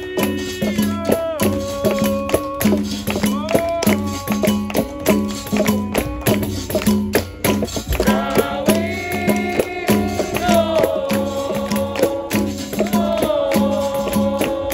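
Capoeira roda music: voices singing long held, sliding notes over berimbau with its caxixi rattle and pandeiro, with steady percussive strokes throughout.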